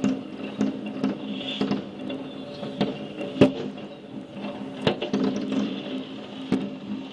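Fireworks going off: a string of irregular bangs and cracks, the loudest about three and a half seconds in and again near five seconds, over a steady hum.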